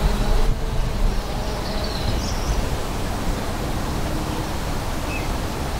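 Steady outdoor background noise with a strong low rumble and no distinct event.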